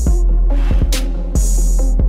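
Background music with a steady drum beat and heavy bass.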